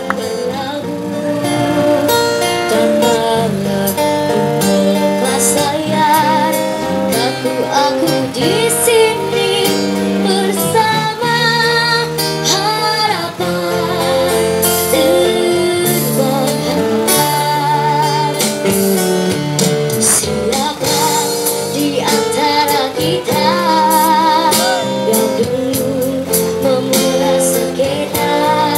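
A girl singing a song into a microphone, amplified through a PA speaker, with a live busking band's acoustic guitar and keyboard accompanying her; her held notes waver with vibrato.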